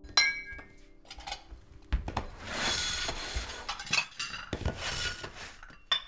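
China teacups and saucers clinking and scraping on a tiled floor: a ringing clink right at the start, a knock about two seconds in, then a few seconds of scraping with scattered clinks.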